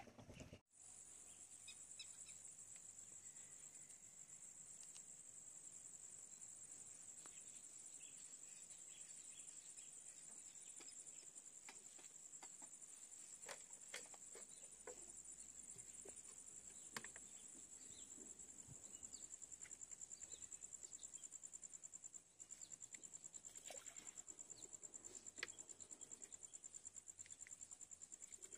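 Faint, steady, high-pitched insect chorus trilling continuously, with a few faint scattered clicks.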